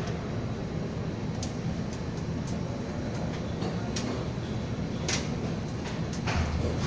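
Steady low mechanical hum and noise, with a few short sharp knocks scattered through it.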